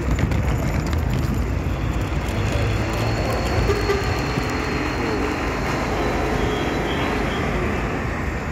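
Diesel cargo truck driving along the quay after rolling off the ferry, its engine running in a steady low drone.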